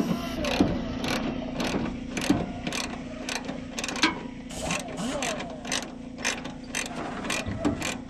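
Hand socket ratchet clicking in short repeated strokes, about three clicks a second, as a bolt is worked off the truck's cowl panel. A steady low hum runs underneath.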